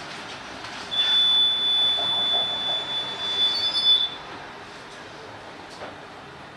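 Tatra T6A5 tram's steel wheels squealing on the rails, one high steady squeal starting about a second in and lasting about three seconds, over the steady rumble of the moving tram.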